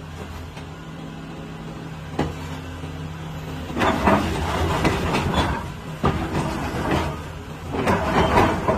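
Doosan DX225 excavator's diesel engine idling steadily, then from about four seconds in running louder and rougher in uneven surges that rise and fall.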